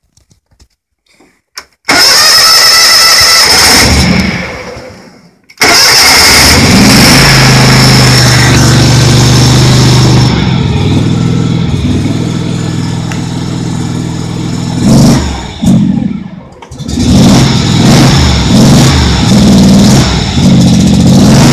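John Deere lawn tractor's engine cold-started: the starter cranks with a whine about two seconds in and fades out, then on a second crank a few seconds later the engine catches and keeps running. Its note dips briefly about three quarters of the way through, then runs on, rising and falling.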